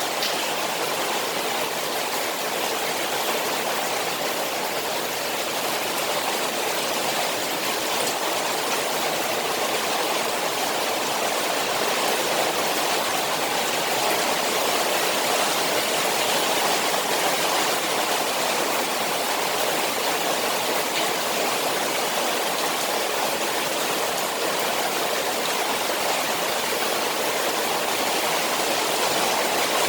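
Steady rush of rain falling on a koi pond, an even wash of water noise with no single drops or splashes standing out.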